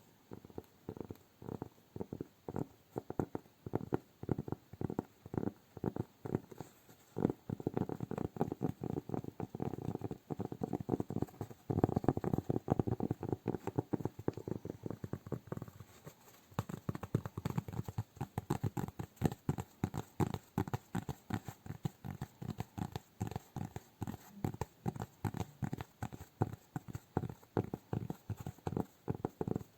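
Hands tapping rapidly in a steady rhythm, several soft taps a second, packed closer together for a while in the first half.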